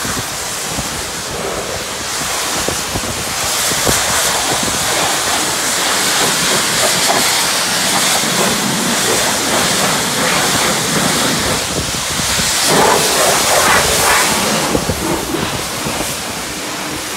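High-pressure wand of a self-service car wash spraying water onto a car's wheel and bodywork: a steady hiss of spray, strongest from about four seconds in until near the end.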